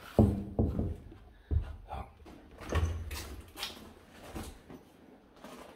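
A few irregular dull thuds and knocks, the loudest a moment in and several more over the next three seconds, then fainter clicks, like doors or metal fittings being bumped.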